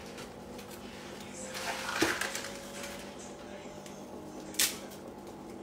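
Dry spaghetti being drawn out of its cardboard box: a rustle with a sharp click about two seconds in, and a short scrape near the end, over a steady low hum from the stove.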